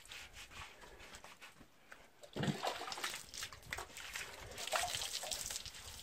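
Water poured from a can over a water buffalo's back, splashing and trickling down its sides. It starts with a short low sound about two and a half seconds in and runs on for about three seconds.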